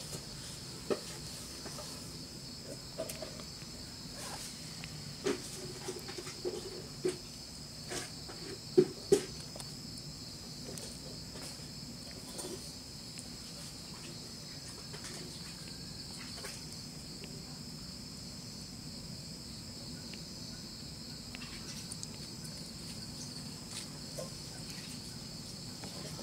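Steady high-pitched insect chirring, like crickets, running on in the background, with a scattering of light clicks and knocks in the first ten seconds; the sharpest are two clicks about half a second apart.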